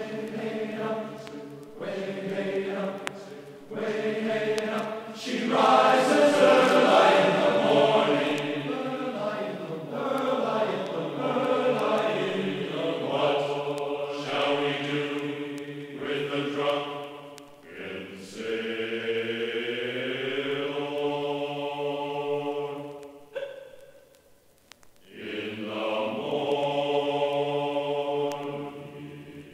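Choral chant: voices singing long held notes in slow phrases, breaking off briefly about four-fifths of the way through before the singing starts again.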